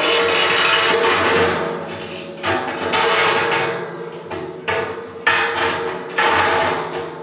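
Steel rebar clanking against a steel drum as the rods are pushed through the drum's vent holes. Each of several knocks sets the drum ringing with a long, slowly fading metallic ring.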